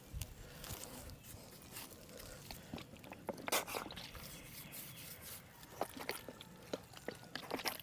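Irregular crunching and rustling footsteps in dry brush and leaves, with scattered small clicks; the loudest crunch comes about halfway through.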